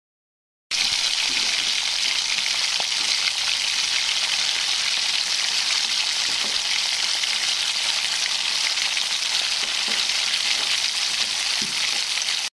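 Chicken curry bubbling and sizzling hard in a pot: a steady hiss with a few faint pops. It starts abruptly about a second in and cuts off just before the end.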